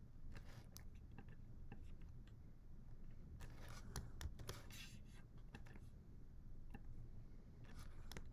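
Faint clicks and taps from a computer keyboard and mouse as an ISBN is copied and pasted into a search box, with brief scraping rustles about three and a half seconds in and again near the end.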